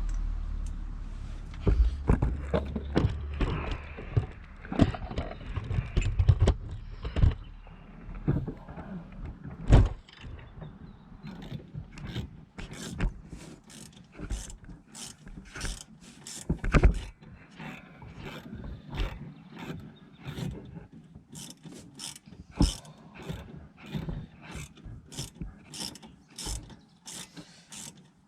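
Metal tools knocking on the Mini's rear brake caliper, then a ratchet wrench clicking in steady strokes, about two clicks a second.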